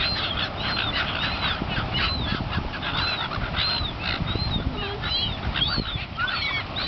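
A flock of seagulls calling: many short, arched cries overlapping, several a second, over a steady low rumble.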